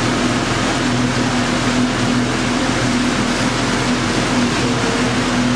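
A motorboat's engine running steadily under way, a constant hum over the rush of wind and water.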